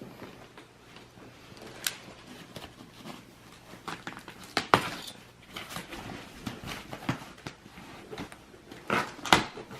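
Scattered clicks, taps and knocks of stroller parts being handled during unpacking and assembly, with two sharp knocks standing out about five seconds in and near the end.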